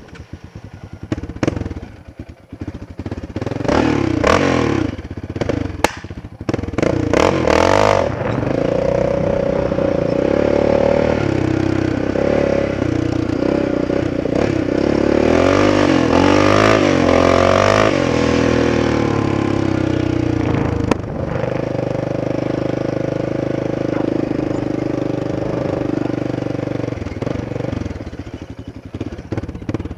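Yamaha Raptor 700R ATV's single-cylinder four-stroke engine running under throttle while riding, its revs rising and falling. It sounds choppy and uneven for the first several seconds and again near the end, and steady in between. The owner says the engine hesitates on long runs.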